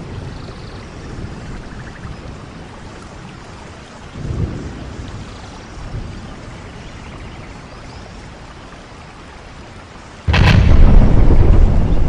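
Stormy wind sound effect: a steady rushing noise with low rumbles swelling now and then, broken about ten seconds in by a sudden loud explosion-like boom that stays loud and rumbling.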